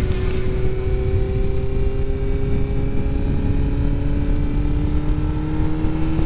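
Suzuki GSX-R 750 K4 inline-four engine running at a steady pace while riding, its note drifting only slightly in pitch, over a low rumble.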